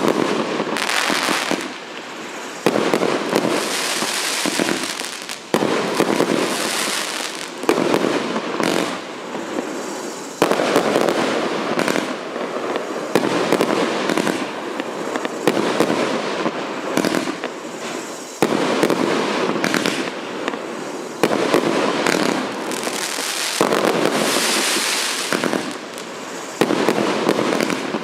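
'Sirius' fireworks battery (cake BSK0118410-12) firing its shots one after another. A sharp bang comes every two to three seconds, each followed by a spell of noise with many small pops.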